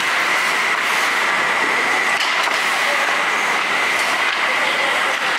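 Ice hockey rink sound: skate blades scraping and carving on the ice, with a few light stick clicks, over a steady high hum.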